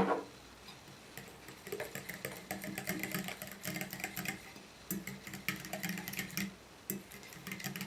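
A kitchen utensil clicking and scraping against a bowl as mashed banana and warm water are stirred together: many quick, light clicks at an uneven pace.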